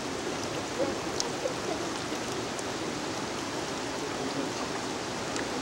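Steady rush of flowing water from a rocky stream.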